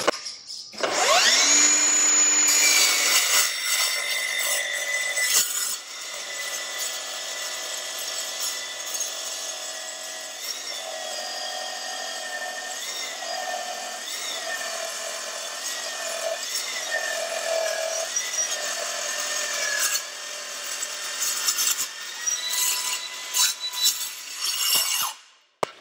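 Milwaukee M18 Fuel 8-inch metal cutting circular saw with a carbide-tipped blade spinning up with a rising whine, then cutting through a steel I-beam web. The whine dips and recovers again and again as the blade loads in the cut and sags slowly lower. The saw is slowing and losing power on a nearly flat 5.0 battery, with the motor being pulled back to protect it. It stops sharply near the end.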